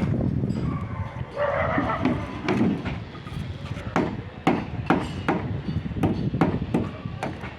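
Hand tool striking over and over, about two blows a second, typical of hammering on a construction job. A brief rougher sound comes about a second and a half in.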